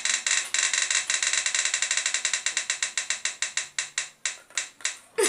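Prize-roulette wheel spinning, its pointer clicking rapidly against the pegs. The clicks slow steadily as the wheel winds down and stop near the end.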